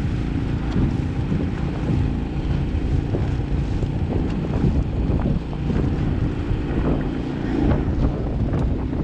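Outboard boat motor running, with wind buffeting the microphone and water sloshing against the hull.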